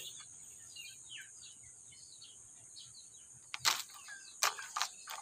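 Small birds chirping quietly, a quick run of short falling notes, over a steady high-pitched hiss. A few sharp knocks come from about three and a half seconds in, the loudest sounds here.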